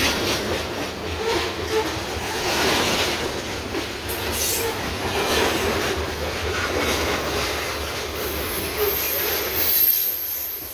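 Freight train of open-top cars rolling past close by: the steady clatter of steel wheels on the rails, with a thin high-pitched wheel squeal in the last few seconds.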